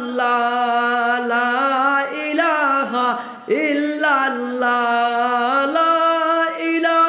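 A man singing a Bengali Islamic jikir (devotional chant-song), drawing out long held notes and sliding up into each new one, with short breaks between phrases.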